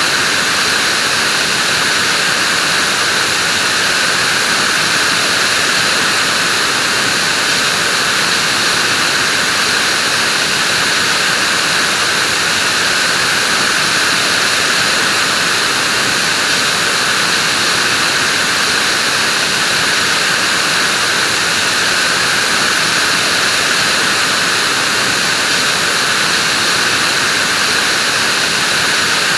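Vacuum cleaner running steadily, a constant airy rush that sits mostly in the higher pitches and never changes.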